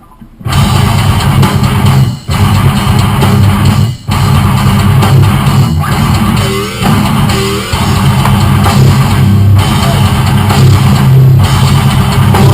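Loud heavy rock music: distorted electric guitar riffing over bass and drum kit, kicking in abruptly about half a second in, with two short breaks in the riff near two and four seconds in.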